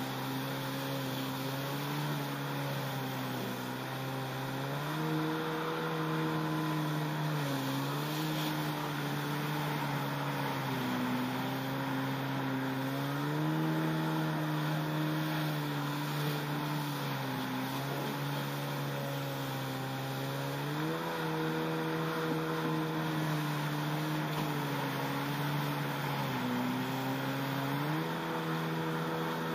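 Yamaha SuperJet stand-up jet ski's two-stroke engine running under way, its pitch dipping briefly and climbing back several times, over a steady rush of wind and water.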